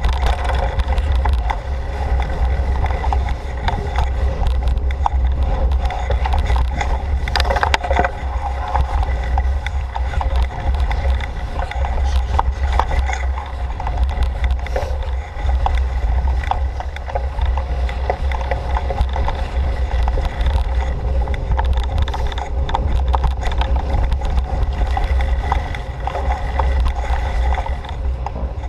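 Mountain bike riding along a rough forest trail: tyres rolling over dirt with frequent rattling knocks and clicks from bumps, a cluster of them about eight seconds in, over a steady low rumble of wind and vibration on the GoPro's housing.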